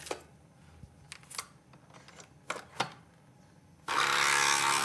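A few plastic clicks and knocks as a coffee capsule goes into a Nespresso capsule machine and the head is closed, then, a bit before the end, the machine's pump starts with a sudden loud, steady buzz as it begins brewing.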